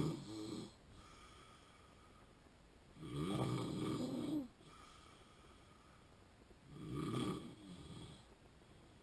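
A sleeping man with sleep apnea snoring in a regular rhythm: one snore tails off at the start, another comes about three seconds in and lasts about a second and a half, and a third comes about seven seconds in.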